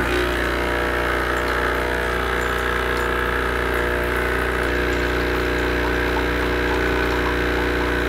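B Coffee Co. Freshman capsule espresso machine running its pump as a steady hum, pushing water through the empty brew head into a cup. This is a first-use rinse cycle with no capsule, on the largest cup size.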